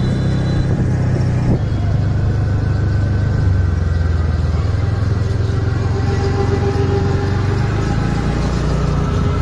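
Small engine of a home-built mini jeep running steadily as it drives along the road.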